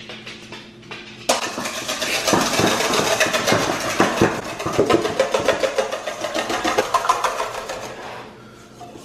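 Wire whisk beating egg whites in a stainless steel bowl: a fast, even clatter of metal on metal that starts about a second in and eases off near the end.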